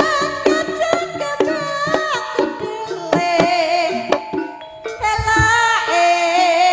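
Live East Javanese jaranan gamelan music: sharp kendang hand-drum strokes and other percussion under a high, wavering melody.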